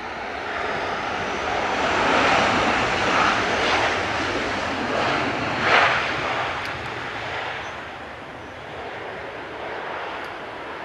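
Jet engines of a twin-engine Airbus airliner running at takeoff power on the takeoff roll. The noise swells over the first two seconds, is briefly loudest about six seconds in, then eases as the plane moves away.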